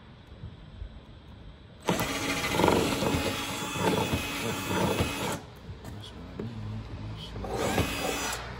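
Cordless drill running in two bursts as it drills holes in a car's rear spoiler: a long one of about three seconds starting about two seconds in, and a shorter one near the end.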